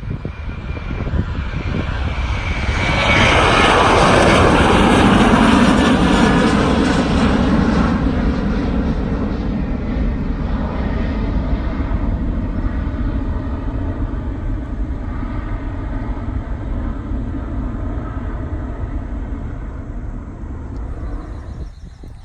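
Fixed-wing airliner's engines passing close by, swelling to a peak a few seconds in with the pitch falling steeply as it goes past, then a long fading rumble that cuts off near the end.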